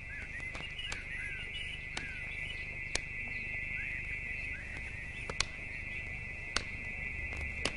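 Small birds chirping in short, repeated calls over a steady high-pitched hum, with a sharp click every second or so.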